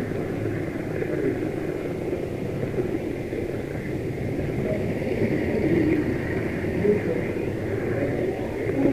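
Steady running noise of an H0-scale model train, picked up by a camera riding on it: a continuous mechanical rumble and whir from the wheels on the track and the drive.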